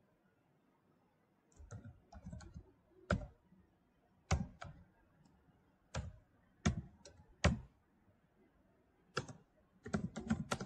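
Typing on a computer keyboard: separate keystroke clicks, some single and some in quick little runs, at an uneven pace, starting about a second and a half in.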